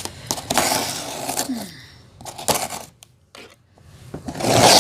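Cardboard boxes and packing material being handled and opened: scraping and rustling with sharp clicks and knocks, and a louder rustle near the end.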